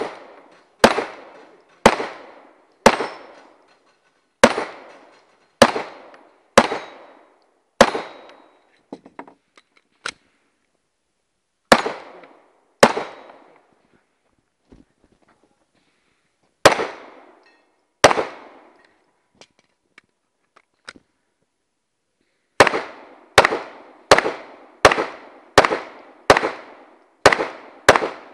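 Glock pistol fired in strings of shots, each crack followed by a short echo: about eight shots at roughly one a second, two pairs after pauses, then a faster run of about nine shots near the end. Faint small clicks and pops between the strings.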